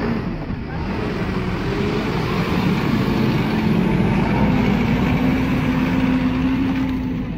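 Mitsubishi Fuso Canter truck's intercooled diesel engine running under load as the truck drives past close by. The engine note rises slightly in pitch, and the sound swells to its loudest about halfway through before easing off.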